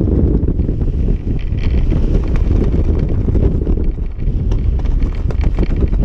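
Wind buffeting a GoPro's microphone during descent under an open parachute canopy: a loud, steady, low rumble with scattered light ticks.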